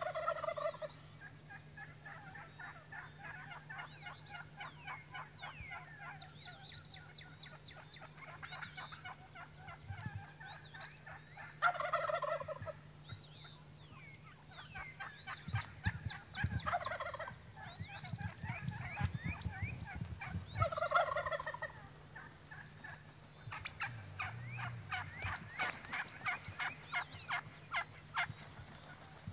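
Rio Grande wild turkeys calling from the roost: gobblers gobble four times, at the start and about 12, 17 and 21 seconds in, over near-continuous hen chatter of rapid yelps and clucks, which runs fastest near the end.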